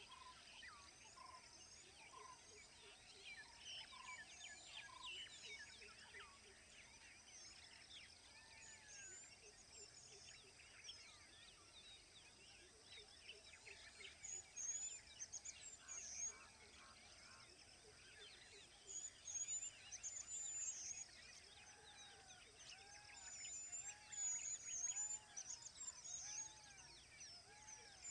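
Faint chorus of several birds chirping and calling. A run of evenly repeated rising-and-falling calls comes in the second half.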